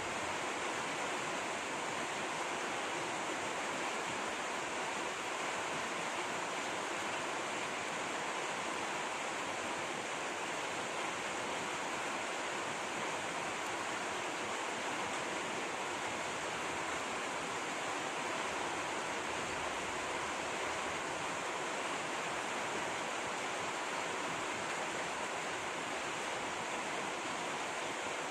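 Steady, even rushing of flowing water with no pauses or changes.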